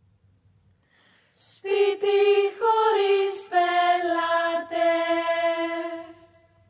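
Unaccompanied singing from a theatre song. After about a second and a half of near quiet, a voice sings a few long held notes that step in pitch, then fades out near the end.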